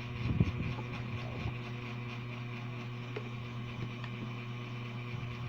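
Steady low mechanical hum, with a few soft knocks about half a second in.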